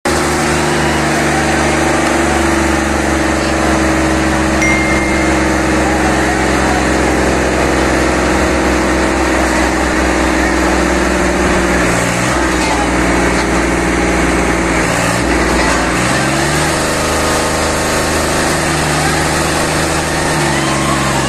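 Diesel engines of two tractors, a Solis 5051E and a Hindustan 50 hp, running steadily at high revs in a tug-of-war pull, their pitch dipping and recovering a few times about two-thirds of the way through. Crowd voices underneath.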